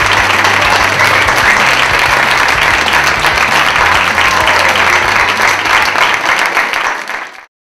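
Crowd applauding steadily over a low hum, fading away to silence near the end.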